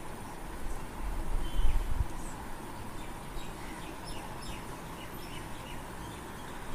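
Steady background hiss of a home recording with a low rumbling bump about a second and a half in, then a run of faint, short, high falling chirps.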